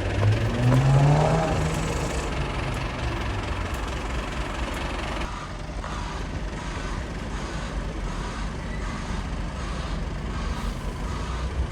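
Fire engine's diesel engine revving up once and dropping back, then running steadily.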